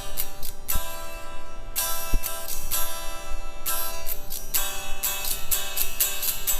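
Guitar strumming chords in a steady rhythm, with a couple of chords left to ring for a second or so before the strumming picks up again.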